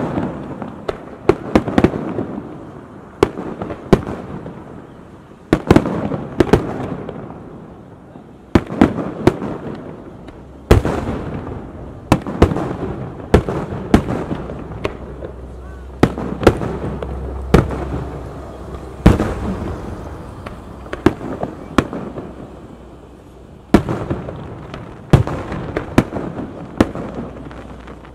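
Aerial firework shells bursting in an irregular volley, loud sharp bangs one or two a second at times, each trailing off into a rumbling echo.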